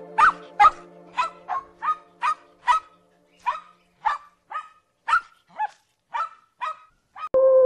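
A small dog barking in short, high yaps, about two a second, for some seven seconds. Near the end the yaps stop and a loud, steady held tone starts abruptly.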